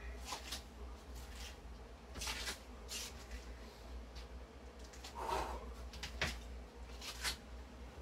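Scattered movement noises of a person walking about between sets: short rustles and breaths, a brief voice-like sound a little past halfway, and a light knock just after it, over a steady low hum.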